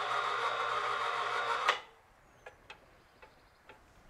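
Electric hoist motor running with a steady hum as it lifts a trailer tailgate hung from a scale, then stopping with a click a little under two seconds in. A few faint, scattered ticks follow.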